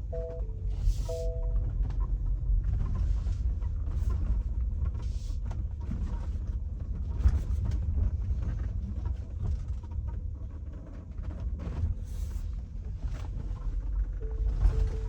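Tesla driving with a steady low road rumble and repeated short, irregular squeaks and creaks, noises that the owner blames on a recent service.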